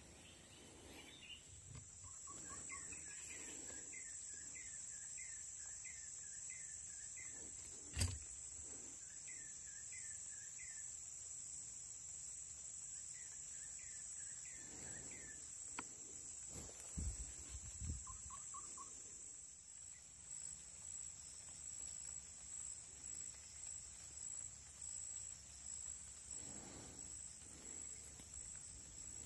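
Faint outdoor ambience: insects keep up a steady high-pitched buzz while a bird calls in runs of short falling chirps. A single sharp click comes about eight seconds in, and a few low thumps near the middle.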